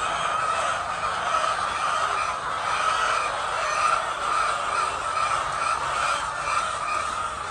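A large flock of chickens calling all at once, a continuous din of many overlapping clucks and squawks.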